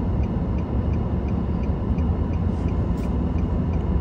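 Steady low rumble inside a car waiting at a traffic light, with cross traffic passing in front. A light regular ticking runs underneath, about three ticks a second.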